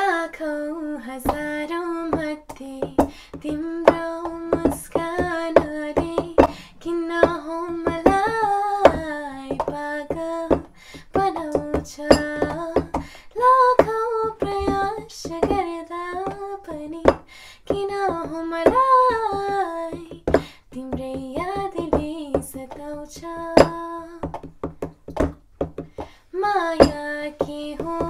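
Female voices singing a melody without instruments, holding long notes, with many short sharp taps throughout.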